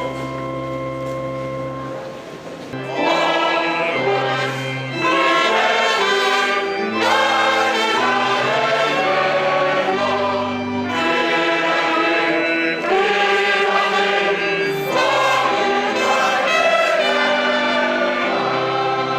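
Music: a choir singing held chords over brass, the chords changing every second or two and swelling louder about three seconds in.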